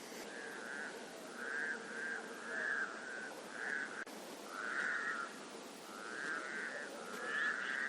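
Wild animal calls: short, scratchy notes repeated about once or twice a second over a faint steady outdoor hiss.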